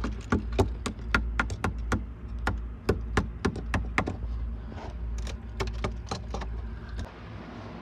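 A steel marlin spike tapping and jabbing at the old wooden frames in a boat's forepeak: a quick, irregular run of sharp taps, about three a second, that stops about six seconds in, over a steady low hum. The timber is being sounded for rot, and here it sounds solid.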